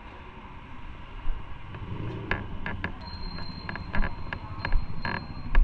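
Footsteps and small knocks as a person pushes through a glass shop door and walks in, over a low rumble. A thin steady high tone comes in about halfway through.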